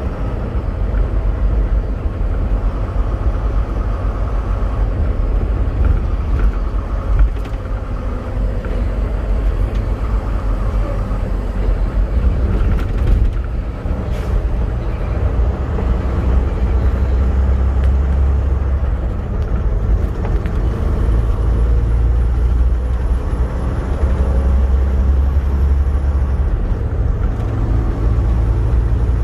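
Semi-truck driving on the highway: steady low engine drone and road noise, swelling in level twice in the second half.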